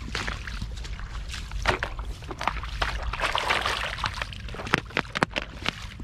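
Water splashing and sloshing in shallow floodwater, in short repeated strokes, with a thicker stretch of splashing about three to four seconds in and a few sharp knocks near the end.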